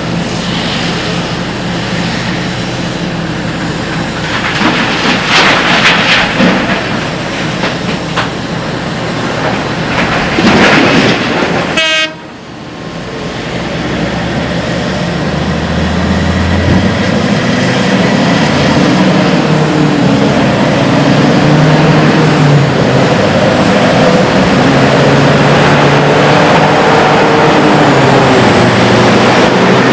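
Heavy diesel engines of a Hitachi EX8000 mining excavator running hard, a steady drone with surges of noise. About twelve seconds in the sound drops away abruptly, then the engines return and climb in pitch, working under varying load.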